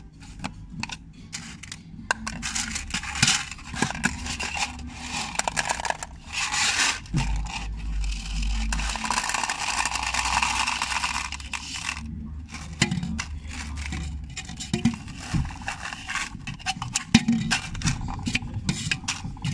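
Scraping and rubbing of toy kitchen things handled close to the microphone in pretend cutting, with many small clicks and knocks. The scraping is densest and loudest in the middle.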